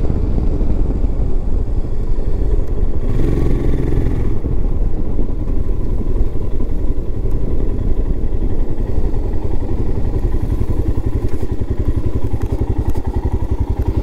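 Motorcycle engine running while riding, with a steady rapid beat of firing pulses and a short louder passage about three seconds in.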